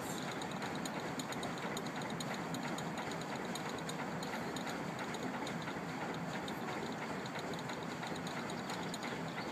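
Diesel-powered paddlewheel narrowboat under way: a steady churning from the engine and the turning paddlewheel, with a fast, even ticking from the paddles going round.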